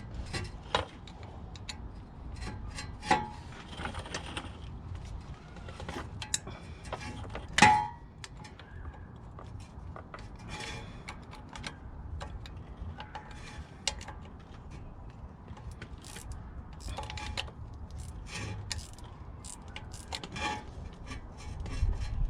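Hand tools and metal parts clinking and clanking irregularly during mechanical dismantling, with two louder ringing metal clangs about three and eight seconds in.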